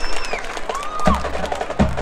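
Marching band percussion: a run of sharp wood-block-like clicks and taps, with deep low hits about a second in and again near the end.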